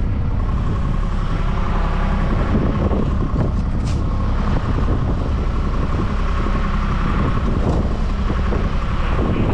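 Strong wind buffeting the microphone as a loud, steady low rumble, over hand digging in rocky soil with a long-handled bar, with one sharp knock about four seconds in.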